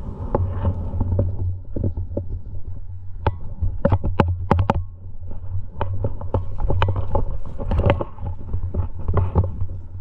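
Low steady rumble on the camera's microphone, with many sharp clicks and clinks of metal climbing gear (carabiners and cams on the harness) and scuffs as the climber moves up the rock.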